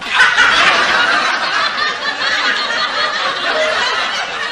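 Laughter sound effect, starting suddenly out of silence and running on without a break.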